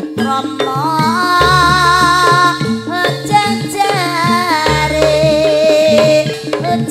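Javanese jaranan gamelan music: drums and gongs keep a steady beat under a loud melodic lead line that slides and wavers between notes.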